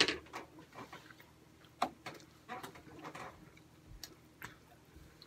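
Chewing and mouth sounds of eating fried chicken nuggets by hand: irregular clicks and smacks, the loudest right at the start.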